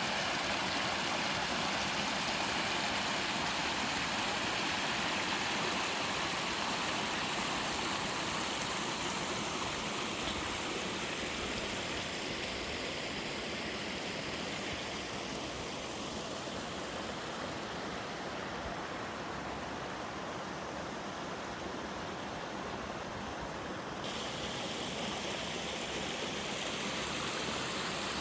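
Waterfall and mountain stream water rushing steadily. The higher hiss thins out for a few seconds past the middle and comes back abruptly near the end.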